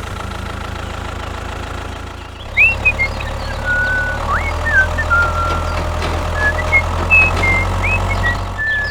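An engine running at a steady idle, with an even low hum that grows louder about two and a half seconds in. From then on, short high chirps sound over it.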